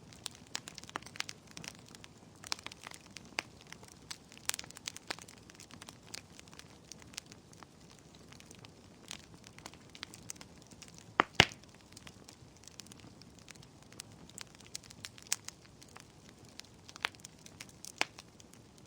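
Bonfire of burning wood crackling, with irregular sharp pops and snaps over a faint hiss, and two louder pops close together about eleven seconds in.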